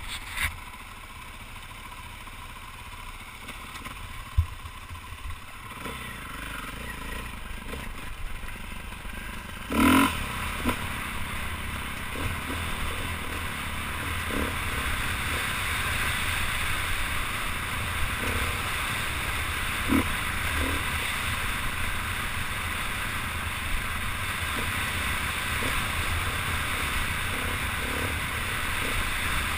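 Dirt bike riding over a rough gravel trail, heard from the rider's helmet camera: the engine runs under a steady rushing noise that grows louder from about six seconds in. There is a loud knock about ten seconds in and a few smaller knocks later.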